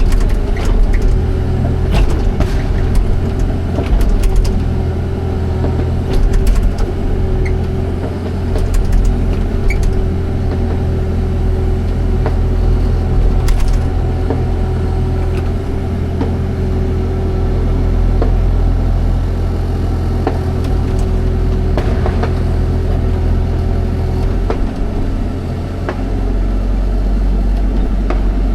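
Excavator's diesel engine running steadily with a steady whine over it, and scattered knocks and clanks throughout. The engine note shifts slightly near the end.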